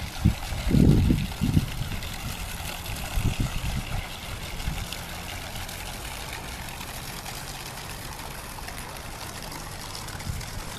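Steady running water in a canal lock. Wind gusts on the microphone for the first few seconds.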